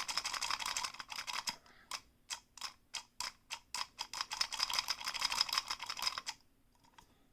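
Plastic clicking and rattling of a McDonald's Marvel Happy Meal Groot figurine as its button is worked to move the arms. It goes as a fast rattle, then separate clicks about three or four a second, then the fast rattle again, stopping a little after six seconds in.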